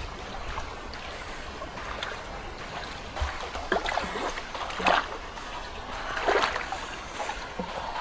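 River water splashing and sloshing as a hand and a stick paddle a large round metal pan along, with a few louder splashes in the second half.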